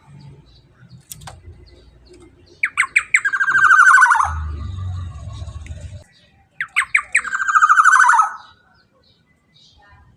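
Black-naped oriole giving two harsh, rasping calls about four seconds apart. Each opens with a few quick sharp notes and runs into a long buzzy note that drops in pitch at the end.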